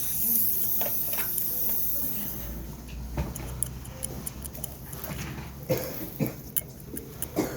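A high hiss stops about two seconds in, then metal dental instruments click and clink against each other several times, the loudest near the end.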